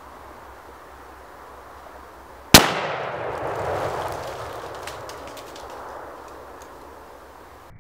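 A single 30-06 rifle shot about two and a half seconds in, followed by a long rolling echo that dies away over several seconds. The bullet bursts the orange it is aimed at.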